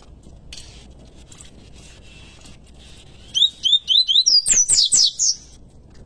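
Coleiro pardo (double-collared seedeater) singing one short phrase a few seconds in. It opens with four quick rising whistled notes and runs into a louder, rapid twittering trill that stops suddenly after about two seconds.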